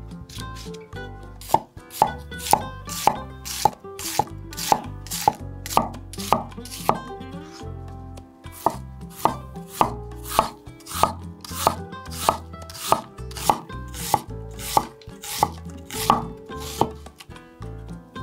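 Kitchen knife chopping a red onion on a wooden cutting board: a steady run of sharp knocks, about two a second, with a short pause about seven seconds in.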